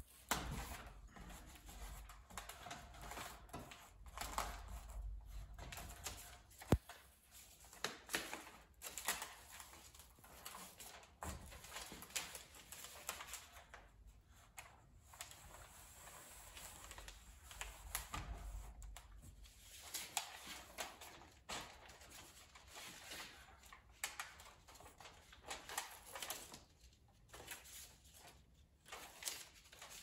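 Aluminum foil tape crinkling and rustling as it is pressed and rubbed down by hand along a seam of foil-faced rigid foam insulation board, with scattered small clicks and one sharp click about a quarter of the way in.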